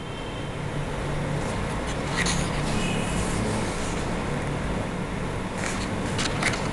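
A coloring book page turned, with a brief paper rustle about two seconds in, then a hand brushing and smoothing the paper a few times near the end, over a steady low background rumble.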